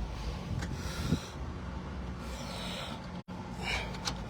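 A person breathing close to the microphone over a steady low hum, with a brief dropout a little after three seconds in.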